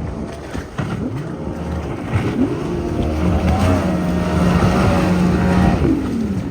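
Motorboat engine running and revving, its pitch rising and falling a few times and holding steady for a few seconds in the middle.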